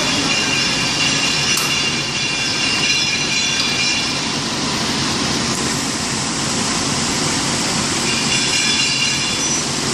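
Steady mechanical noise of a high-frequency plastic welding machine at work, with a thin high whine over the first four seconds and again near the end.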